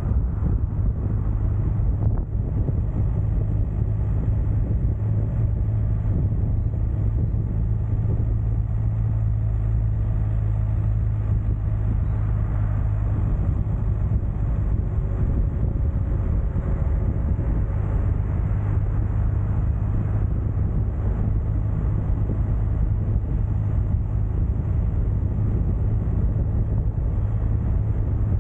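Steady, unbroken low engine drone of a moving vehicle, with a strong low hum and a constant rushing noise.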